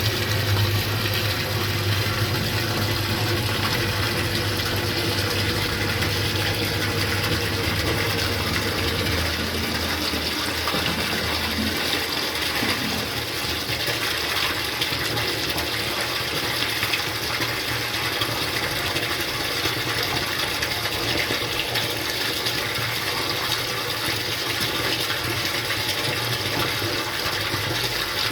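Steady rush of storm rainwater pouring into a cistern overflow system, with a low hum underneath that drops away about twelve seconds in.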